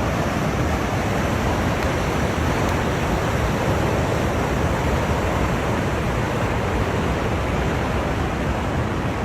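Steady, loud rush of fast-flowing floodwater, an even churning noise with no breaks.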